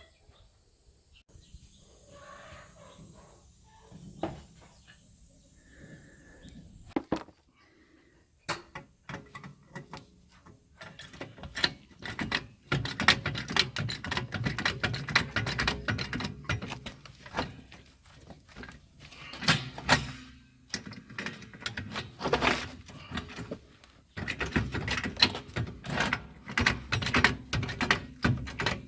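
Hand-tool work on a car: a quiet stretch with a few faint knocks, then from about nine seconds in, long runs of rapid clicking and knocking.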